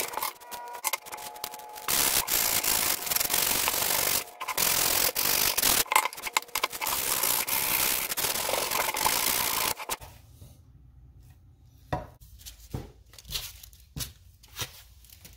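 Sandpaper rubbed by hand along a wooden buck saw frame piece: a scratchy rub in stretches broken by short pauses. It stops about ten seconds in, leaving only a few faint clicks.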